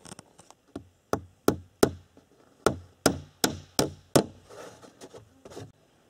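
Hammer driving small nails into thin wooden boards: about a dozen sharp taps, two or three a second, in two runs, with a couple of fainter taps near the end.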